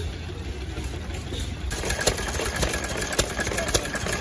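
Antique hit-and-miss stationary gas engines running and puttering, with sharp knocks about twice a second. The sound gets brighter and louder about halfway through.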